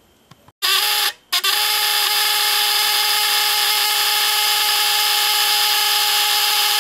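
Model T Ford buzz coil buzzing steadily, its vibrator firing a test spark plug. It starts about half a second in, cuts out for a moment, then holds a steady, even buzz. The coil is labelled as giving no spark to the plug and needing a new capacitor (condenser).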